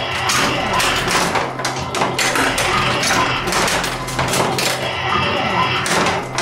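Data East Tales from the Crypt pinball machine in play during multiball: steel balls clacking off flippers, targets and posts in quick, irregular hits. The game's music and sound effects run underneath.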